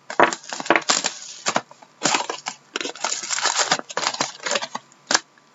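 Plastic shrink wrap crinkling and tearing off a sealed card box, then the cardboard box opened and the foil card packs rustling as they are pulled out, with a sharp tap near the end.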